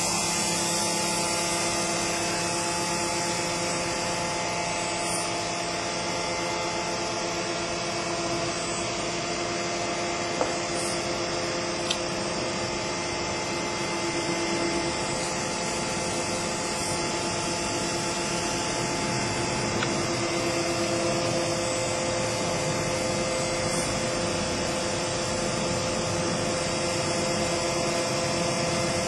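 CNC engraving machine running: a steady machine whine with a few held tones over even mechanical noise, and two short clicks about ten and twelve seconds in.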